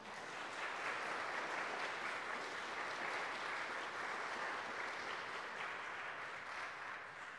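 Congregation applauding, many hands clapping steadily and fading out near the end.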